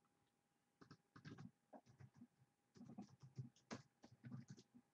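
Faint typing on a computer keyboard: a run of quick, uneven key taps.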